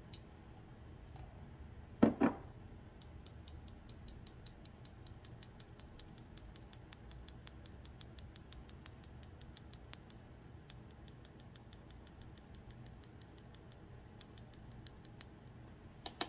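Cinnamon shaken from a spice shaker over sliced bananas, heard as a long run of light, quick ticks, about five a second, with a couple of short pauses. One sharp knock about two seconds in, likely from the spice container being handled.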